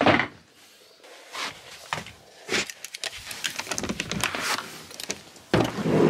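Scattered light knocks and clicks of things being handled, then about five and a half seconds in a sudden loud, steady rush of noise.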